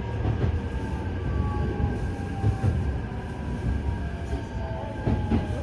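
Keikyu New 1000 series electric train heard from inside the car while running: a steady low rumble with faint whining motor tones that slowly glide down in pitch. A couple of brief knocks from the wheels come through, one about halfway and one near the end.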